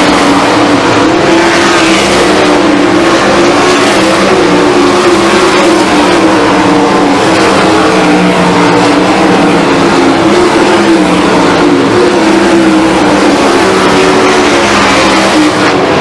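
A field of 410 sprint cars racing on a dirt oval, their 410-cubic-inch methanol V8s running flat out. The sound is loud and continuous, with several engine notes overlapping and wavering up and down in pitch as the cars lap.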